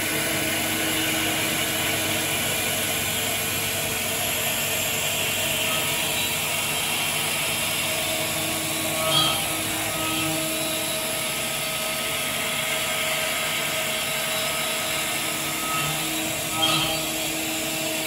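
WIDIA WCE4 four-flute solid carbide end mill spinning at 9,550 rpm in a CNC machining centre, milling stainless steel: a steady cutting noise with a few held tones through it. It swells briefly twice, about nine seconds in and again near the end.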